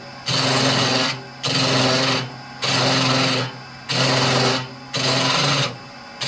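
A hollowing tool's 6mm cutter cutting inside a spinning horse chestnut hollow form on a wood lathe. It goes in five strokes of about a second each, with short pauses between them.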